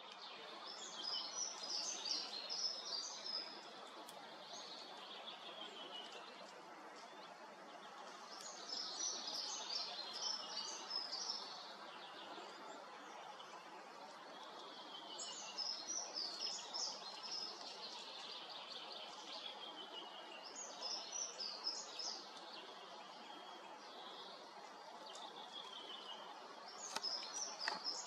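A songbird singing a short trilling phrase five times, about every six seconds, each phrase falling in pitch at its end, over a steady background hiss of forest ambience.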